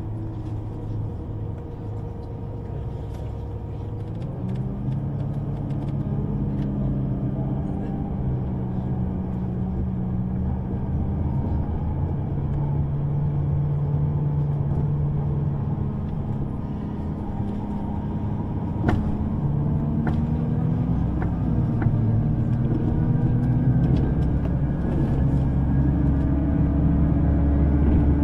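Underground train running: a steady low rumble with motor tones that rise in pitch about four seconds in and again later, growing gradually louder as the train speeds up, with a couple of sharp clicks in the second half.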